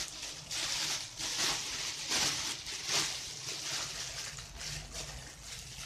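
A plastic bag crinkling and rustling in repeated swells as raw meat inside it is handled and lifted with plastic-gloved hands.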